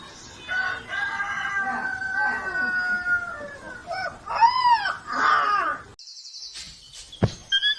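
An animal's long drawn-out call, held for nearly three seconds, followed by a few shorter calls that rise and fall in pitch. A sharp click comes near the end.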